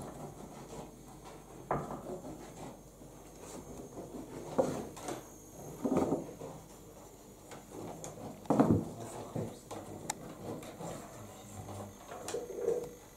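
Irregular wooden knocks, bumps and rubbing, with about five louder thumps spread through, as of doors and wooden floorboards in a small room.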